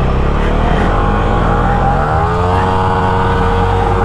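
Motorcycle engine revving, rising in pitch about two seconds in and then held high, as the bike sits bogged in deep mud with its rear wheel spinning. A second motorcycle engine runs steadily close by.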